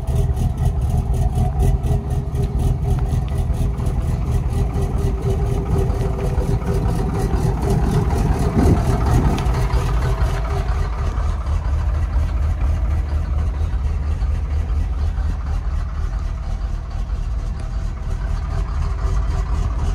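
Dodge Ram 3500 pickup's engine idling steadily with an even, rapid ticking. The sound turns duller about halfway through, heard from inside the cab.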